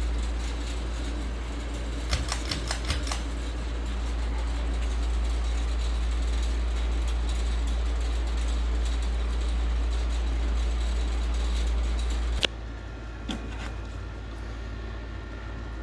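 Ceiling fan running steadily, its airflow buffeting the microphone with a heavy low rumble. A cluster of clicks comes about two seconds in, and a sharp click near the end, after which the sound is quieter.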